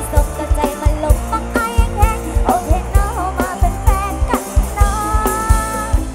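Live band music with a female vocalist singing over a kick drum and bass beat, with a long held note near the end.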